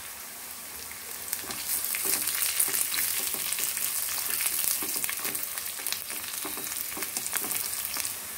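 Sliced onions, garlic and dried red chillies sizzling in hot oil in a nonstick kadai as a spatula stirs them, with a steady hiss and many small scrapes against the pan. The sizzle grows louder about a second and a half in, once the stirring starts.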